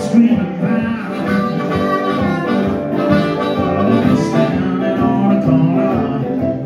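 Live blues band: harmonica wailing held notes over strummed acoustic guitar and electric guitar.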